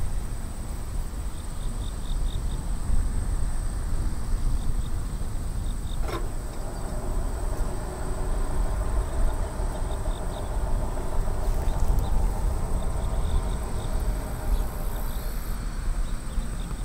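CSX freight train rolling past a grade crossing: a steady low rumble of wheels on rail. Crickets trill steadily in the background.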